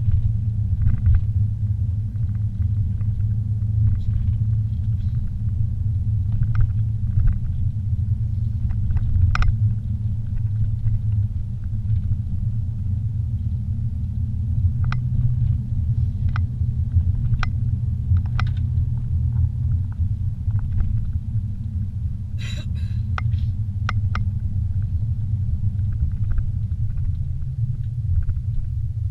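Car driving along a paved road, heard inside the cabin: a low, steady road and engine rumble, with scattered light clicks and rattles.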